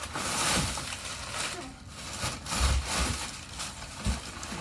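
Packing paper being handled and crumpled while a box is unpacked, in several rustling bursts. A dull thump comes a little past halfway, and another near the end.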